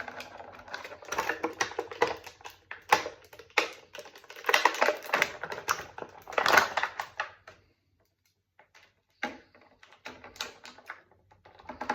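Plastic and cardboard toy packaging being worked open by hand: runs of crinkling and clicking, with a short pause a little past halfway.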